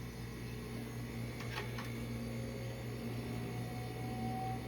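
Vintage dehumidifier running, its compressor and fan making a steady hum, with a couple of faint ticks about one and a half seconds in. The unit's coil is frosting up.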